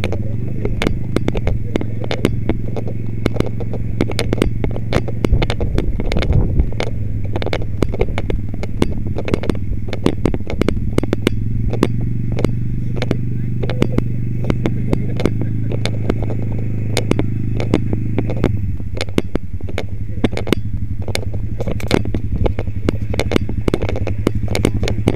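ATV engine running at low speed while it drags a moose carcass along a dirt track, with a steady hum. Frequent clicking and clattering sit over it, and the engine note eases about three-quarters of the way through.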